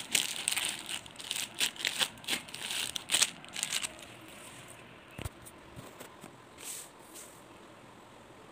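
Clear plastic sleeves of packed t-shirts crinkling and crackling as they are handled, in a dense run of crackles that thins out about four seconds in to a few faint rustles.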